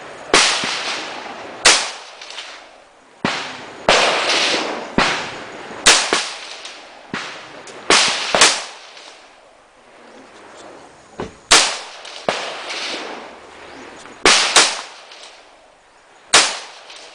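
Colt M4 carbine (5.56 mm) fired as a string of single shots at uneven intervals, about fifteen in all, several in quick pairs, each crack followed by a long echoing tail.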